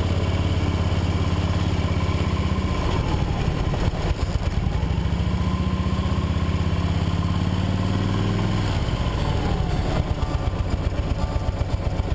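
Motorcycle engine running at low speed. Its note climbs for several seconds, then drops suddenly about nine seconds in.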